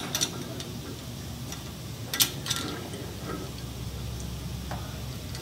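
Sharp metallic clicks and taps from sway bar end link hardware being handled and fitted: a handful of clicks, the loudest at the start and about two seconds in, over a low steady hum.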